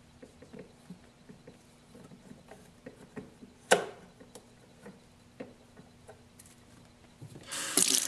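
Light clicks and taps of plastic parts as the inside of an automatic coffee machine is worked over by hand, with one sharp click about halfway through. Near the end a loud rush of running water starts.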